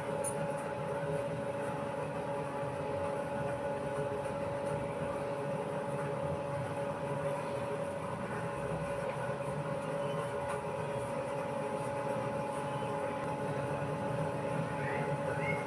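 A steady machine hum with a few held tones, unchanging throughout.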